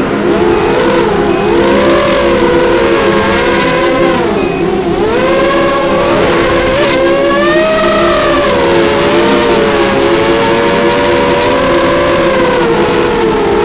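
Racing quadcopter's brushless motors and propellers whining. The pitch rises and falls as the throttle changes, dipping sharply twice near the middle.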